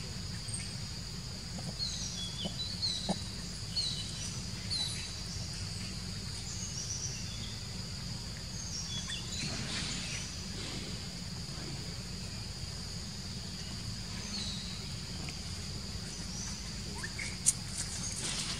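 Forest ambience: a steady high insect drone with short bird chirps scattered through it, over a low steady rumble. One sharp tap near the end.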